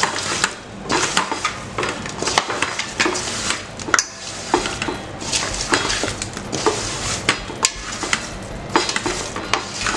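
Hands mixing raw chicken pieces with spice powders and paste in a metal bowl to marinate them: a run of irregular clicks and knocks as the pieces are tossed against the bowl.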